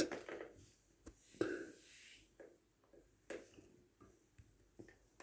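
A brief louder noise at the very start, then scattered soft taps and clicks, a few to the second, as of small handling sounds in a small room.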